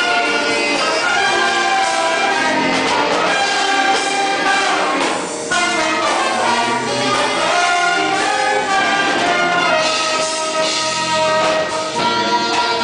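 An orchestra playing an instrumental piece, with held melodic notes and a short break in the sound about five seconds in.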